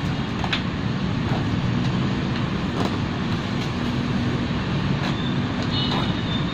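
Steady background rumble with a few light clicks and taps.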